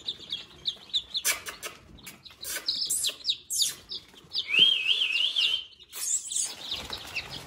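A brooder full of young Rhode Island Red and Black Australorp chicks peeping, many short high cheeps overlapping. About halfway through one louder, wavering trill runs for over a second, with some light rustling and clicks earlier on.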